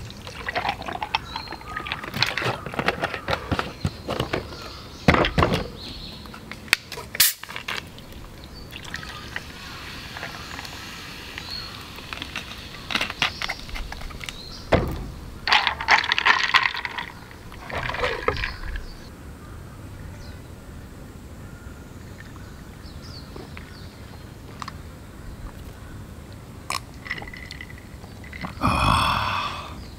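Whisky poured from a big plastic bottle onto ice in a glass mug, the ice clinking and cracking, with short knocks of bottle and glass on a wooden table as a highball is mixed.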